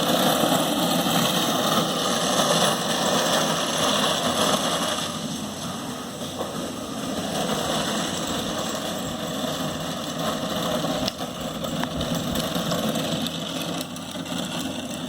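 Electric Razor Drifter ride-on running on hard 3D-printed PETG wheels, the plastic wheels rolling and skidding on concrete with a steady grinding noise. It is loudest for about the first five seconds, then drops somewhat. The wheels keep losing grip and spinning out because the PETG is so hard.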